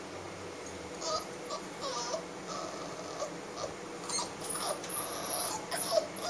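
Caged puppies whimpering, short high whines that start about a second in and come more often toward the end.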